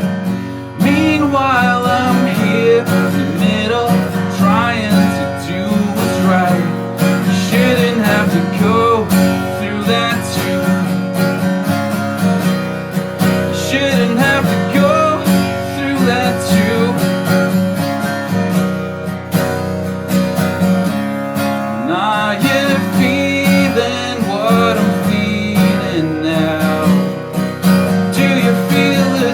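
Live song performance with a strummed acoustic guitar and a wavering melodic line over it.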